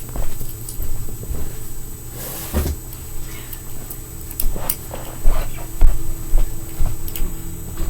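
Small clicks, taps and knocks of fingerboard parts and a skate tool being handled while the board is put together, with a short hiss a little after two seconds and a few heavier thumps in the second half.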